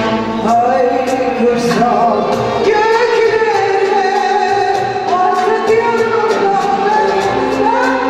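A woman singing a Turkish art music (Türk sanat müziği) song solo into a microphone, with violins accompanying. The melody moves through held notes with ornamented turns and slides between them.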